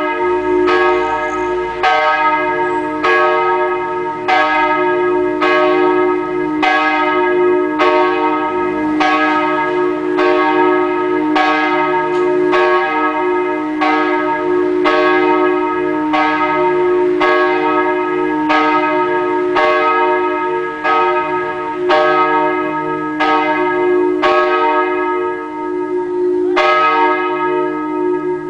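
Catholic church bell ringing before Mass, struck about once a second in a steady, even rhythm, each stroke ringing on into the next so the tone never dies away.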